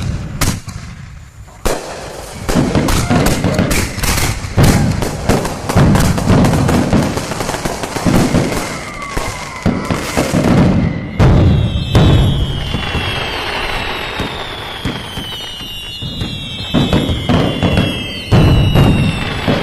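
Fireworks going off: rapid crackling and popping bangs over deep booms. From about eleven seconds in, several falling whistles sound over the continuing booms.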